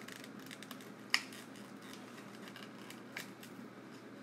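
Small clicks and taps of batteries and their packaging being handled, with one sharp click about a second in and a couple of fainter ones around three seconds.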